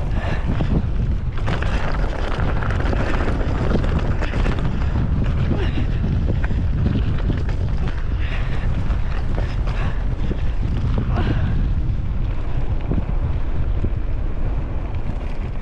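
Wind rushing over the microphone of a camera on a mountain bike riding a dirt trail, with tyres crunching over dirt and small stones and the bike rattling over bumps.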